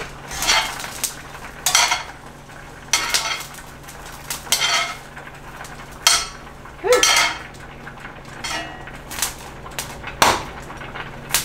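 A metal utensil clinks and scrapes against a pan and dishes in irregular short clatters, about one every second or so, as the freshly blistered shishito peppers are moved.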